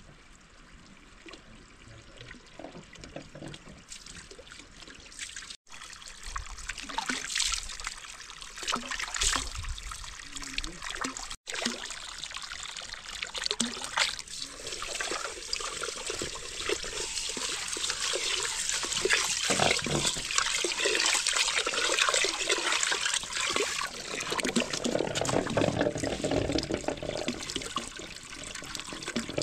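Water running and trickling, growing louder and fuller over the second half, with two brief dropouts about five and eleven seconds in.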